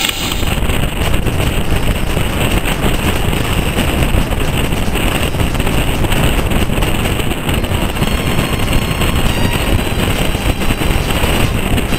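Wind buffeting the microphone, a loud, rough, gusting rumble.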